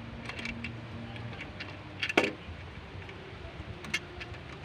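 Scattered metal clinks and clicks of tools and mounting hardware while an alternator is refitted, with one louder metallic clank about two seconds in. A low background drone stops about a second in.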